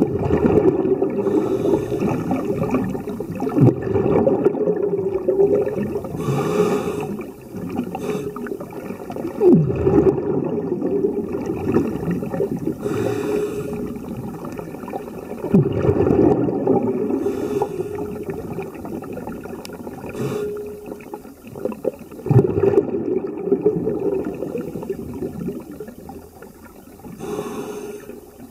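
Scuba diver breathing through a regulator underwater: a hiss on each inhale and a rumbling burst of exhaust bubbles on each exhale, in a cycle about every six seconds.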